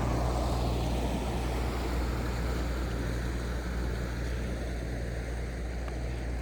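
Engine of a passenger river cruise boat running with a steady low hum, slowly fading as the boat moves away.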